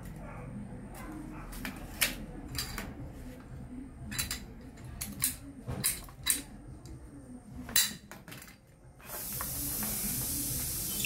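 Plastic pipe being cut with a hand pipe cutter: a string of sharp snaps and clicks, about eight over six seconds, irregularly spaced. About nine seconds in, a steady hiss takes over.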